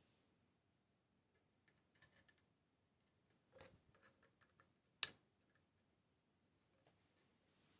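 Small parts of a diecast model kit being handled on a work surface: faint scattered clicks and light taps, with one sharper click about five seconds in.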